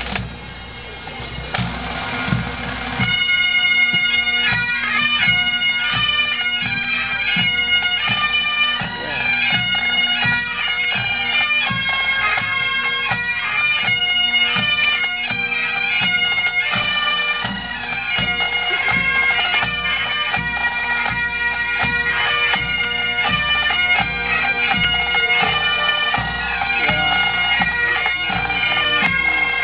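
A pipe band playing: Great Highland bagpipes sound a tune over a steady drone, with the band's drums beating time underneath. The full tune settles in about three seconds in.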